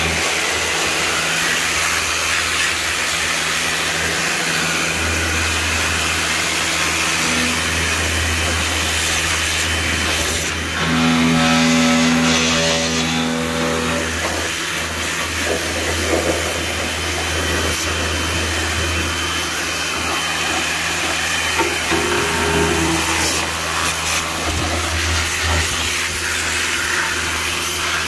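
Pressure washer running, its pump humming steadily under the hiss of the water jet spraying over an engine. It grows louder for a few seconds about eleven seconds in.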